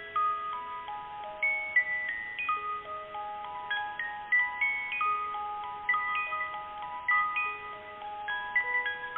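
Slow chime-like melody of struck bell tones, a couple of notes a second, each ringing on under the next.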